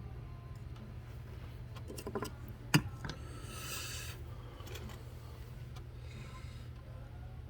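Soldering-iron tip scraping and tapping on a plastic hummingbird feeder during plastic welding: light scraping and small clicks, with one sharp click just under three seconds in, over a steady low hum.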